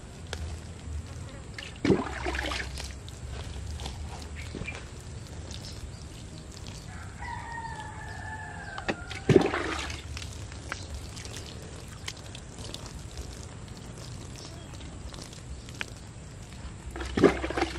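Water poured from a plastic container splashing onto the dark soil of a garden bed, three pours about seven seconds apart, each starting sharply and trailing off over about a second. A rooster crows once between the first two pours, quieter than the splashing.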